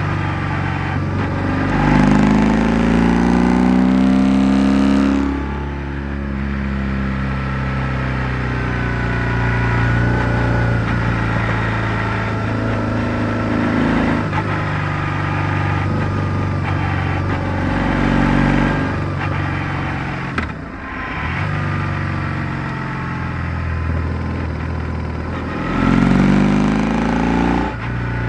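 BMW R1100R's boxer twin engine running under way, heard from a microphone under the seat. The engine note rises under throttle about two seconds in, then drops off abruptly, and rises and drops again near the end, with a brief dip in sound about two-thirds of the way through.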